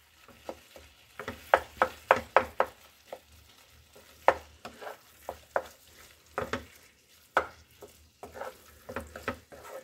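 Spatula scraping and knocking against a non-stick kadhai in irregular strokes, mixing raw chicken mince into peas and masala over a faint sizzle.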